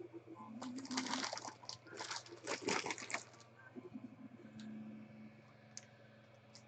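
Plastic wrapping, such as bubble wrap or a bag, crinkling and crackling as it is handled and pulled away, in a dense run of crackles for about three seconds, then only a few faint ticks.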